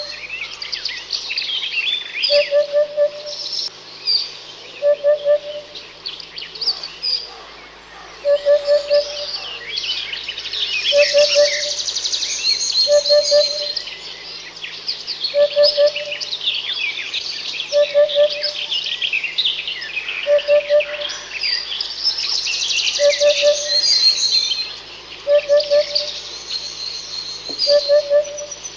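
A chorus of many birds chirping and singing at once, overlapping fast high calls, with a lower call of two or three short hooting notes repeating about every second and a half.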